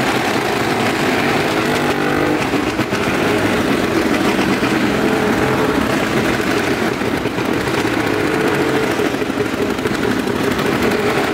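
Several motorcycle engines running together inside a wooden well-of-death arena, a steady, loud engine din.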